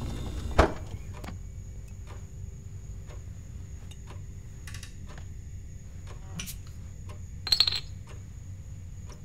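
A refrigerator door shutting with a single sharp thump about half a second in, then scattered small clicks of a glass bottle being handled, with a brief rattle of clinks near the end.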